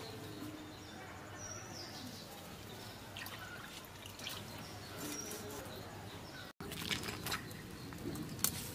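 Faint outdoor ambience with birds chirping now and then, and a few soft clicks and splashes from live climbing perch being handled in a clay pot.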